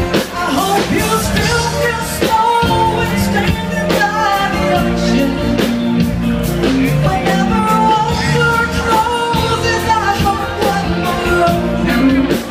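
Live band playing an upbeat song with a singer and a steady drum beat.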